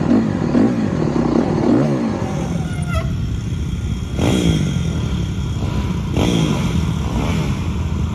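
Pit bike engines running and revving, the pitch climbing sharply about four seconds in and again about six seconds in.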